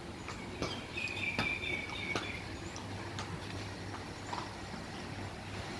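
Horse stable ambience: scattered light knocks and clicks over a steady low hum, with a thin high tone for a second or so near the start.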